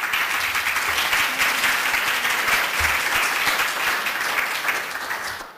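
Audience applauding: dense clapping that starts at once and fades away near the end.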